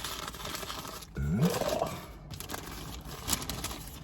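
Paper sandwich wrapper crinkling and rustling as the sub is handled, with a short rising vocal sound about a second in and a single click near the end.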